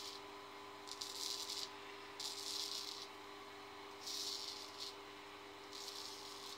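Straight razor scraping through lathered stubble on the cheek and jaw: four short rasping strokes, each under a second long.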